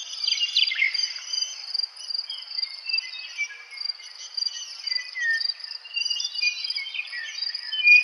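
Meadowlark singing: clear whistled notes sliding down in pitch about half a second in, then more short warbled phrases later on. A steady high trill runs behind the song throughout.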